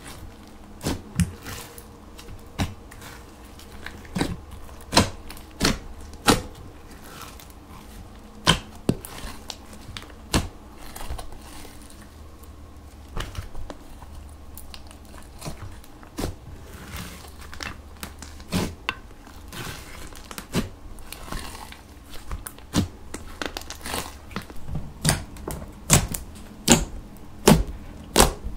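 Hands stretching, folding and poking a large mass of sticky, glittery slime: irregular wet clicks and pops as it pulls and squishes, coming faster near the end.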